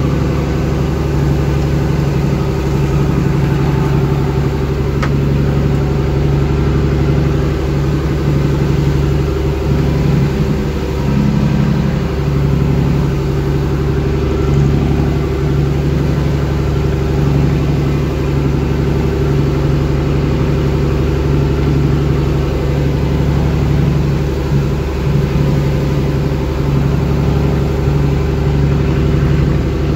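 Small fishing boat's engine running steadily under way, with water rushing past the hull.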